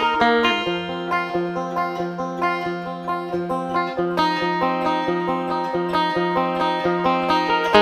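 Five-string banjo fingerpicked in a steady stream of bright picked notes, ending on a stronger note that rings on.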